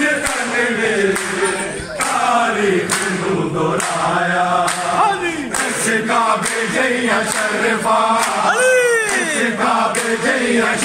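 A crowd of men chanting and singing together in unison, loud and steady, with sharp claps on the beat. One voice swoops high and falls again near the end.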